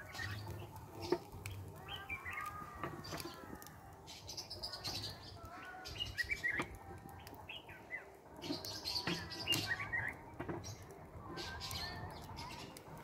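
Small birds chirping and singing in short, scattered calls with quick rising and falling notes, over a low background rumble.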